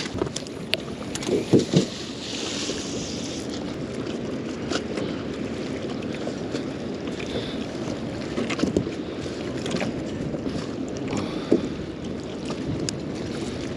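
Wind buffeting the microphone and choppy water slapping against a small boat's hull, with a few scattered knocks.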